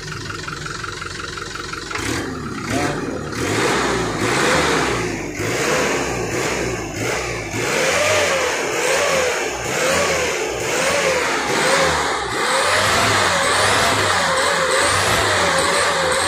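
Turbocharged truck diesel engine idling, then from about two seconds in revved over and over on the accelerator pedal. The pitch rises and falls about once a second.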